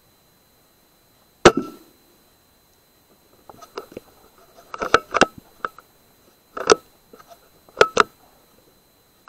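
A single sharp shot from a BSA R10 .22 pre-charged air rifle about a second and a half in, then a run of short metallic clicks over the next few seconds as the rifle is cocked and the next pellet is loaded from its magazine.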